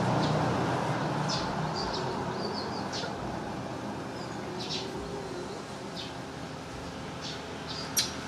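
Scattered short, high-pitched chirps from small animals over a steady low hum, with one sharp click near the end.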